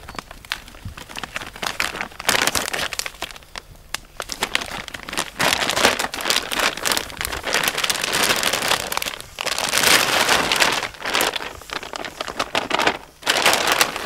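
Clear plastic bag crinkling and rustling in bursts with short pauses as crumbly brown material is shaken out of it onto the ground.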